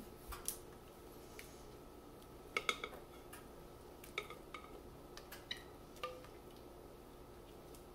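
Spatula scraping and tapping against a glass mixing bowl as thick batter is scraped out: scattered faint clicks and knocks, with a quick run of three about two and a half seconds in.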